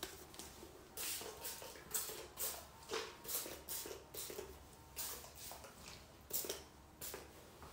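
Trigger spray bottle of heat-protectant spray spritzing onto hair, a series of short hissing sprays about every half second.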